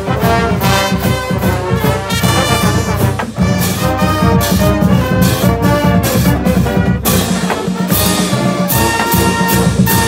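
College marching band playing a brass tune: trombones, trumpets and sousaphones, with crash cymbals striking on the beat.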